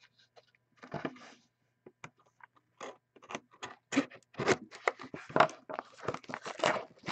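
Plastic shrink wrap on a cardboard trading-card box being scratched at and peeled with the fingers: quick crinkling scrapes, sparse at first and much busier from about three seconds in.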